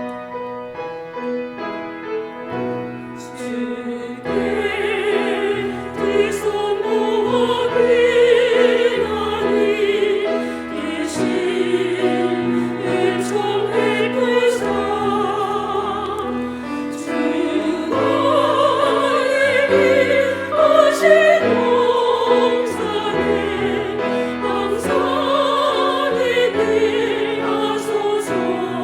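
Women's vocal ensemble singing a hymn with piano accompaniment. The piano plays alone for the first few seconds before the voices come in.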